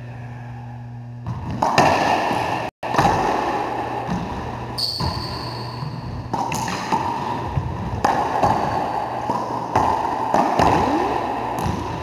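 Racquetball play: the ball smacks off racquets and the court walls in quick, irregular hits, starting about a second and a half in.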